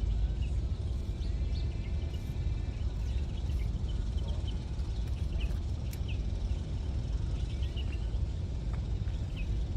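Outdoor ambience: a steady low rumble with many short bird chirps scattered throughout.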